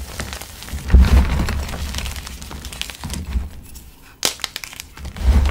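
Hands squeezing and grinding crumbled, brick-hard gym chalk blocks mixed with glitter and coloured powder: uneven gritty crunching and crumbling, with a sharp snap of a chunk breaking a little past four seconds in.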